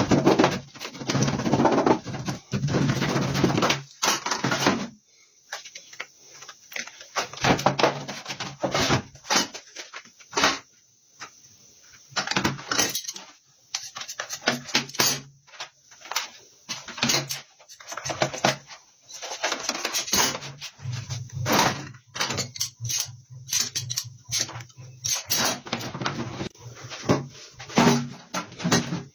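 Repeated clicks, knocks and scraping of hand tools and scissors working a rubber tyre-repair patch on a metal workbench. A low steady drone sounds in the first few seconds and again from about two-thirds of the way in.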